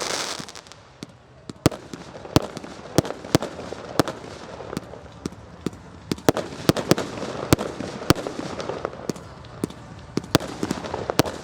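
Display fireworks bursting: a run of sharp, irregularly spaced bangs, about two a second, over a continuous rumble of further bursts. A brief hiss of crackle fades away in the first half second.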